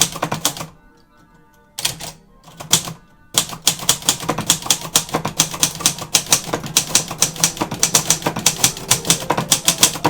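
Manual typewriter (a 1965 Royal) being typed on in a type test, keys striking the platen. A few short bursts come first, then fast, steady typing of about six or seven keystrokes a second from a little after three seconds in.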